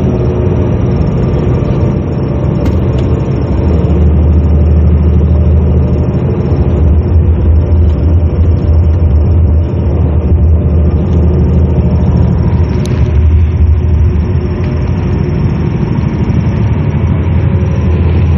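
Engine and road rumble heard inside the cabin of a moving bus, a steady low drone with no break.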